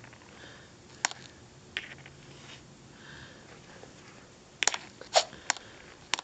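Scattered sharp clicks or taps: single ones about one and two seconds in, then a quick run of three later on and one more near the end.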